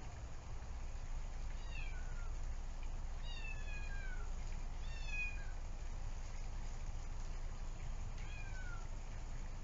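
A kitten meowing loudly four times, each high meow sliding downward in pitch and the second drawn out longest: the kitten yelling for its companion.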